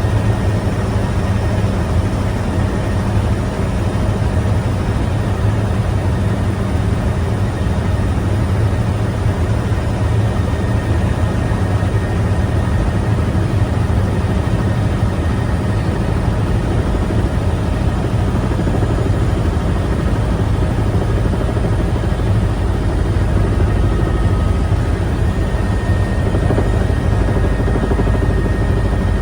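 Helicopter in flight: steady, loud rotor and engine noise, heaviest in the low end, with a faint steady whine above it.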